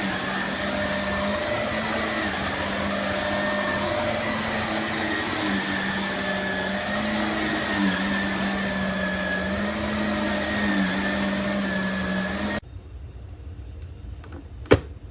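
Shark NV360 Navigator upright vacuum cleaner running, a steady motor hum with a high whine whose pitch wavers slightly. It switches off abruptly near the end, and a sharp click follows.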